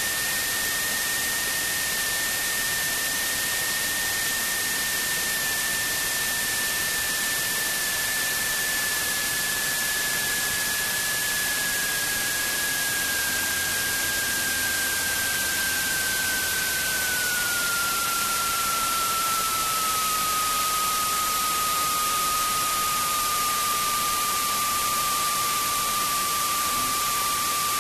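Cockpit noise of a Symphony light aircraft landing: a steady rushing hiss of engine and airflow, with a thin whine that falls slowly in pitch and drops more steeply a little past halfway as the plane touches down and slows on the runway.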